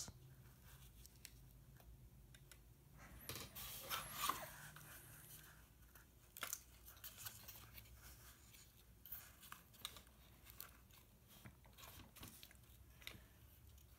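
Faint crunching and scraping of a cardboard and craft-foam action figure being handled and posed, loudest about three to five seconds in, with scattered small clicks.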